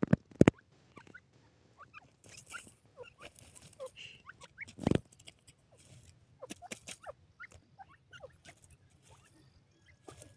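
Grey francolins giving soft, short squeaky calls, scattered irregularly throughout, with a few sharp clicks at the start and one louder knock about five seconds in.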